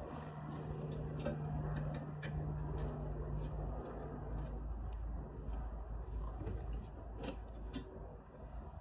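Scattered light clicks and taps of parts being handled, over a steady low hum that eases near the end.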